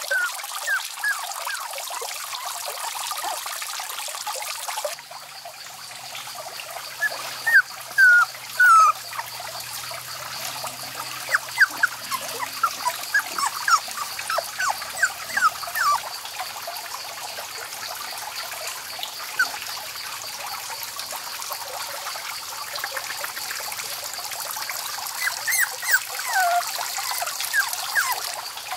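Puppies whimpering in many short, high squeaks, busiest in the first half and again near the end, over a steady hiss.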